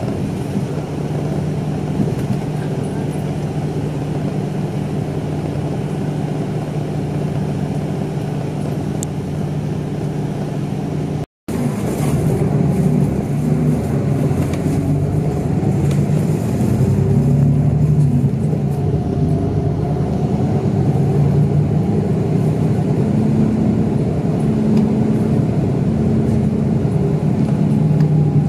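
Engine of a large route bus running as it drives through town, heard inside the passenger cabin: a steady low hum whose pitch shifts up and down with the bus's speed in the second half. The sound cuts out for a moment about eleven seconds in.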